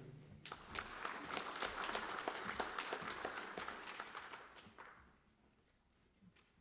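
Audience applauding, starting about half a second in and fading out after about five seconds.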